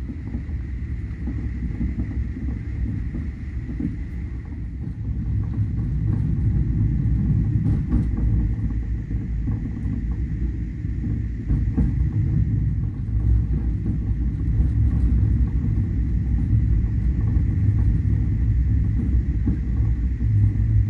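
Steady low rumble of a moving passenger vehicle, growing louder about six seconds in, with a faint steady high whine over it.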